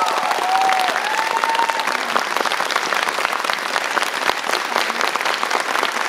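Audience applauding steadily, with the last held notes of the music dying away in the first two seconds.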